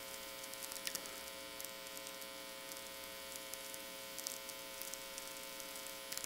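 Audio from a VLF natural-radio receiving system: irregular sharp clicks and crackles of sferics, radio impulses from distant lightning, over hiss and a steady mains hum with its harmonics.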